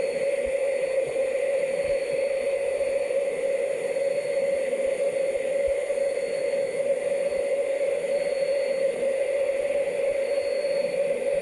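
Steady, unchanging jet noise of a Sukhoi Superjet 100-95 airliner's SaM146 turbofan engines, a constant hum with a faint high whine over it.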